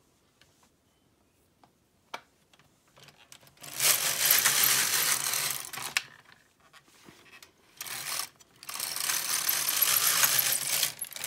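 Silver Reed LK150 mid-gauge knitting machine carriage pushed across the needle bed twice, knitting two rows. Each pass is a continuous clatter lasting a few seconds, with a few light clicks before and between the passes.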